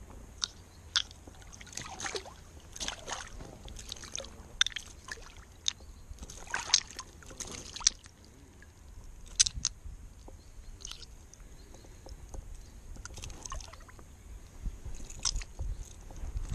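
Water sloshing and splashing right at a float tube, in irregular small splashes and drips, with a run of sharper splashes in the first eight seconds and a few more later.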